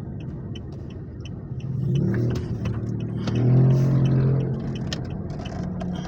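Toyota Innova's 1GD four-cylinder turbodiesel running as the car drives, its engine note rising twice as it picks up speed, about two seconds in and again loudest around three and a half seconds, with a faint regular light ticking underneath.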